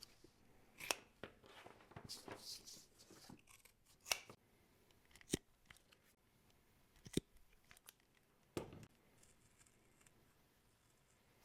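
Scissors cutting out a pattern: about five sharp, separate snips a second or so apart, with a short stretch of scratchy rustling about two seconds in.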